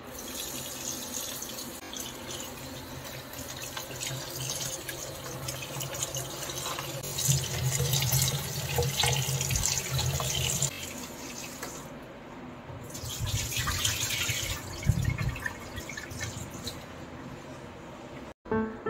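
Kitchen tap running into a plastic bowl of flat bean pods (papdi) in a steel sink, with hands stirring and rubbing the wet pods. It splashes louder in stretches as the pods are turned, then stops abruptly near the end.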